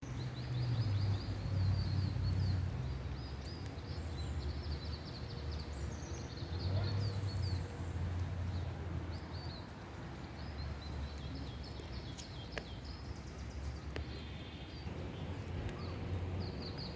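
Small songbirds chirping in quick, high, repeated calls over a steady hiss of rain, with a low rumble underneath that swells and fades.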